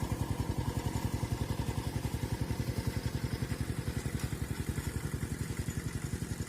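A small engine running steadily with a rapid, even beat of about a dozen pulses a second.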